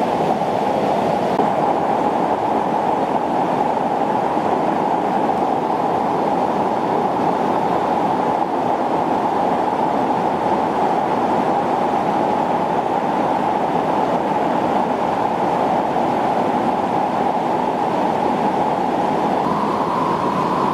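Fast mountain river rushing through boulder-strewn whitewater rapids: a loud, steady, unbroken rush of water.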